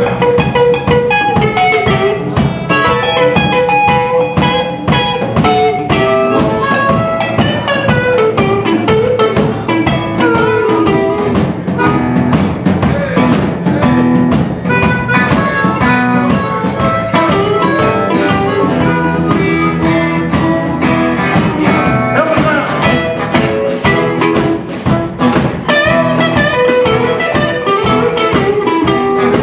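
Live blues band playing an instrumental passage: electric guitar lead with bending notes over a drum kit, with no singing.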